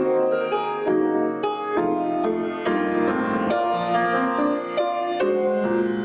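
Slow piano music: held chords and melody notes, a new note or chord struck roughly every half second.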